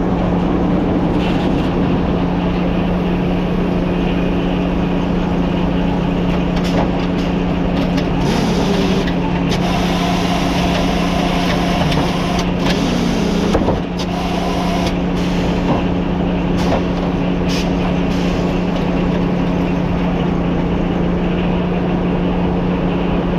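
An old Frick sawmill running with a steady low engine drone, with scattered knocks and clatter from the mill machinery. The level dips briefly about two-thirds of the way through.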